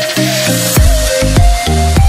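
Electronic dance background music: a rising hiss builds up, then a deep bass line and kick drum come in about three-quarters of a second in, under a repeating melody.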